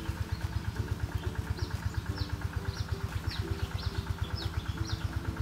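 A small engine idling steadily with an even, fast low throb. Short high chirps repeat over it about twice a second.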